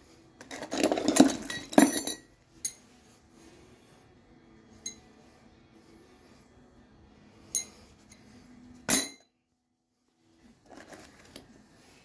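Loose metal hardware (screws, washers, bolts) and hand tools clinking and rattling as a gloved hand rummages through an open tool bag. It is loudest in a dense jangle during the first two seconds, followed by a few separate clinks and a faint rattle near the end.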